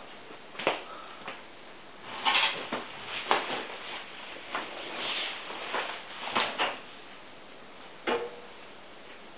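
Laundry being picked up and pushed into a tumble dryer's drum: fabric rustling with a scattered series of short knocks and taps.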